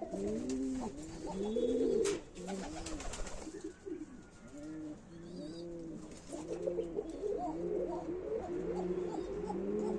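Domestic pigeons cooing, several birds at once with their coos overlapping, briefly thinning out about halfway through. A single sharp click about two seconds in.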